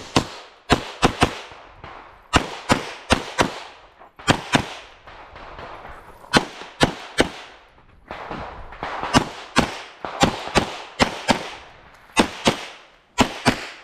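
Pistol-caliber carbine firing a USPSA stage: about two dozen shots in quick pairs and short strings, each with a brief ringing echo. Pauses of a second or two fall between groups as the shooter moves to new positions.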